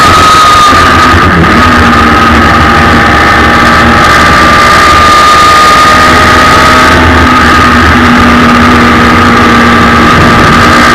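Suzuki Hayabusa inline-four motorcycle engine powering a race car, running hard at high revs with a loud rush of wind over the open cockpit. The engine note holds nearly steady, dipping slightly about a second in and easing a little near the end.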